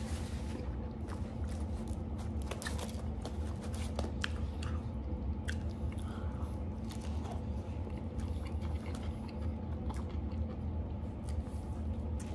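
Close-miked chewing and biting into a cheeseburger, with many short wet mouth clicks, over a steady low hum.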